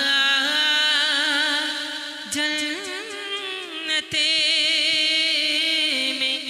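A man singing an Urdu devotional naat (kalam) into a stage microphone, drawing out long, wavering melismatic notes with no words, with brief breaths about two and four seconds in.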